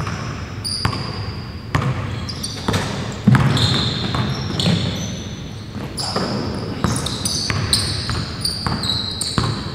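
Basketball dribbled on a hardwood gym floor, bouncing roughly once a second, with sneakers squeaking in short high chirps as the players cut and defend.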